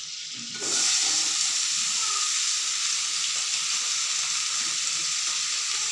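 Chopped vegetables sizzling in melted butter in a hot pan. The sizzle jumps up suddenly about half a second in as the vegetables go in, then holds steady.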